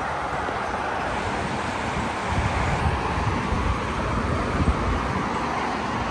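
Steady road noise from cars moving along a divided highway below, with wind buffeting the microphone in uneven gusts.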